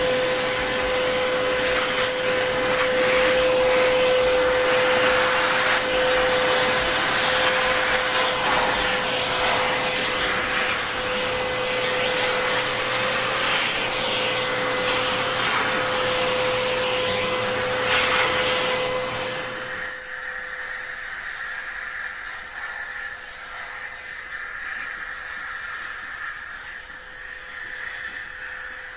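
Vacuum cleaner running with a steady hum, its floor-brush nozzle drawn over a dog's coat so the rush of suction swells and fades. About two-thirds of the way through it cuts to a quieter, thinner vacuum sound played back through a laptop's small speakers.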